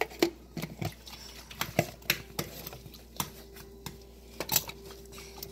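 Kitchen clatter of dishes and utensils during sandwich making: a dozen or so irregular sharp clicks and knocks, with a steady low hum coming in about two seconds in.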